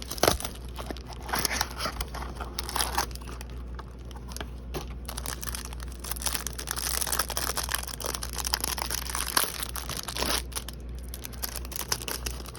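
Trading card packs being torn open and their wrappers crinkled as the cards are handled, an irregular crackling throughout, over a steady low hum.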